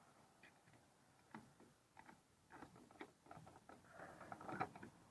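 Near silence with faint, irregular clicks and a short burst of light clatter about four seconds in.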